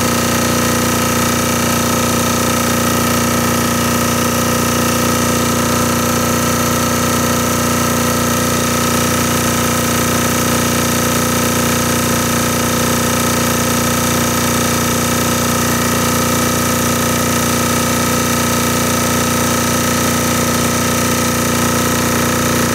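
AA Diesel air-cooled diesel generator running steadily under a heavy load of about 4500 W, its engine holding an even, unchanging pitch. It is turning just under synchronous speed, putting out about 59.6 Hz against its 60 Hz target.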